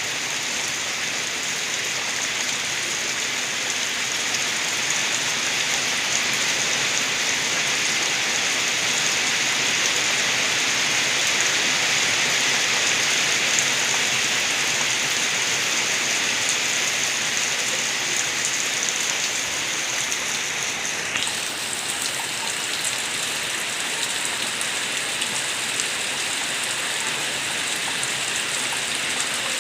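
Steady rain with rainwater gurgling outside a window, an even hiss with no breaks. About two-thirds of the way through, the high part of the hiss changes slightly.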